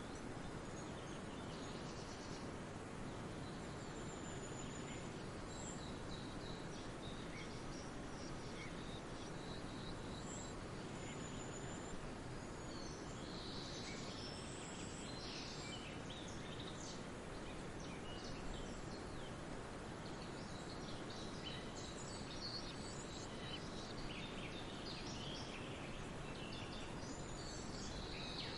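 Small birds chirping and calling in short, scattered high notes over a steady background hiss, the chirps growing busier about halfway through.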